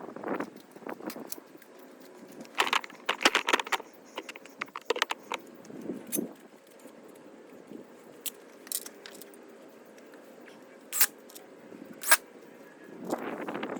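Clinking and clattering of small hard objects being handled, busiest a few seconds in, with two sharp clicks near the end.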